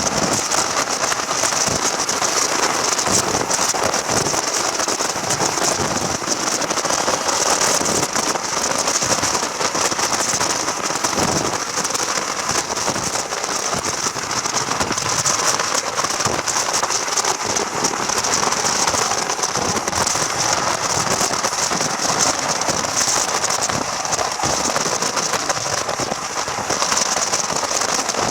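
Steady running noise of a passenger carriage on the move, a dense crackling rattle with a bright hiss high up, unbroken throughout.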